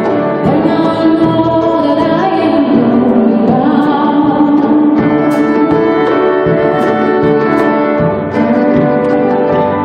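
Live gospel choir singing with a female lead vocalist, a mandolin strummed along.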